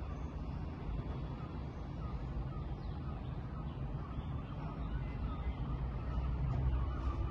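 Wind buffeting the microphone: a steady, low rumbling noise that swells and eases a little, strongest near the end.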